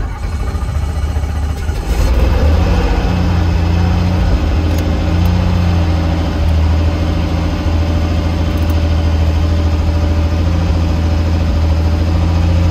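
Robinson R44 helicopter's piston engine starting up, growing louder over the first two seconds, then running steadily with a strong low drone in the cabin.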